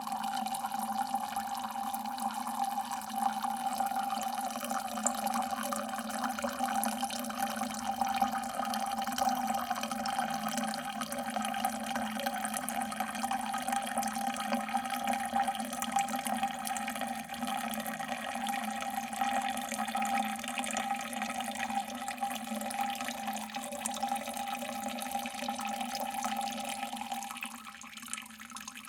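Water dripping fast, the drops running together into a steady trickle, growing quieter near the end.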